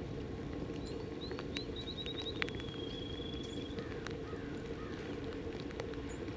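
A songbird sings once: a few quick high notes, then a steady high trill about a second long. Under it runs a steady low rumble with scattered sharp clicks from a wagon train of horses and covered wagons on a wet dirt road.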